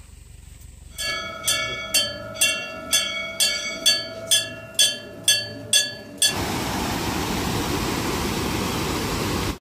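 A temple bell rung about a dozen times at roughly two strikes a second, each strike ringing on into the next. About six seconds in it gives way to the steady rush of a mountain stream tumbling over rocks.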